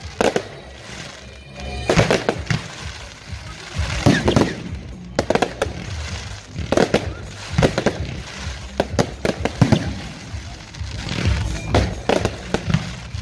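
Fireworks shells bursting in a string of sharp bangs every second or two, some in quick clusters of cracks, with music playing underneath.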